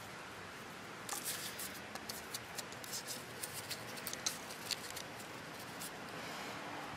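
Close handling noise: a run of small clicks and scrapes as a plastic Dexcom sensor unit is picked up and pressed into a hole cut in a piece of corrugated cardboard. The clicks stop about five seconds in.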